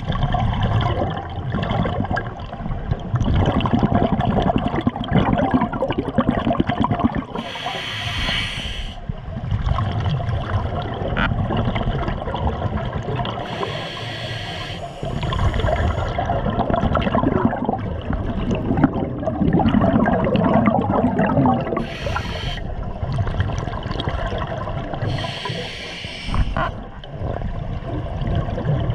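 Scuba diver breathing through a regulator underwater: four short hissing inhalations spaced several seconds apart, with long bubbling, gurgling rumbles of exhaled air between them.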